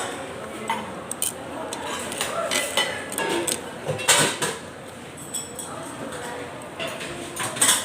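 Cutlery and dishes clinking during a meal: scattered sharp clinks of utensils against bowls and plates, over a murmur of background voices.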